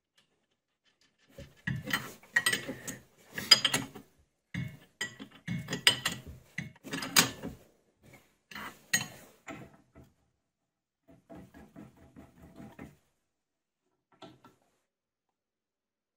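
Open-ended spanner tightening a nut on a bolt in the headstock of a Record Power Coronet Herald wood lathe. Repeated metal clicks and scrapes come in short bursts, then lighter ticking follows near the end.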